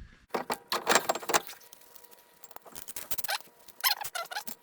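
Metallic clinking and rattling as a new brake rotor is lifted and turned on the wheel hub to line its hole up with the retaining screw, in two bursts of handling.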